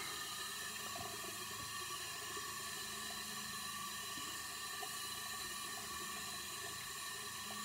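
Sink faucet left running: a steady, even hiss of water.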